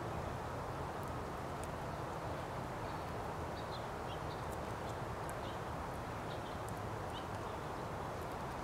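Steady outdoor background noise, a low hum under an even hiss, with a few faint short bird chirps now and then.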